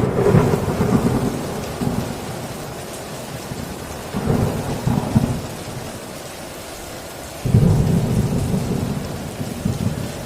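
Heavy rain drumming on a tin roof with thunder. Three loud low rumbles of thunder come in suddenly: one at the start, another about four seconds in, and a third about seven and a half seconds in.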